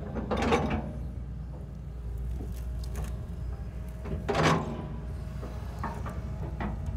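Tracked excavator's diesel engine running steadily under load, with louder scraping clanks about half a second in and again about four and a half seconds in as the toothed bucket and tracks grind through dirt and branches.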